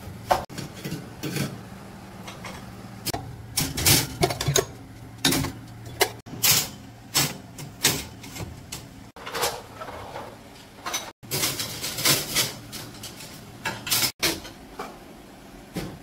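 A series of irregular knocks and clatters of hard objects, a dozen or more sharp hits at uneven intervals, over a faint steady hum that fades out near the end.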